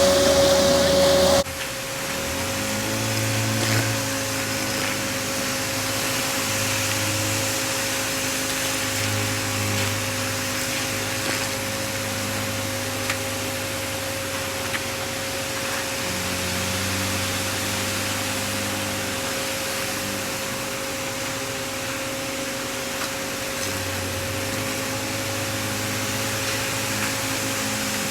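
Engine of a concrete agitator truck running while concrete is discharged, with a steady whine and an engine note that rises and falls several times. A louder noise cuts off suddenly about a second and a half in.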